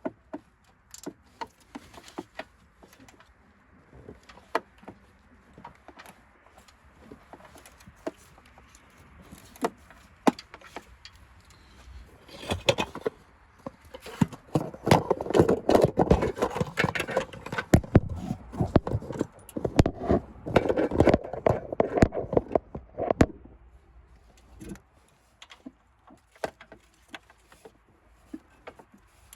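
Hand work on the air filter box in a car's engine bay: scattered clicks and knocks, then about ten seconds of dense rattling and clattering as the box is worked loose and pulled out, quieter clicks again near the end.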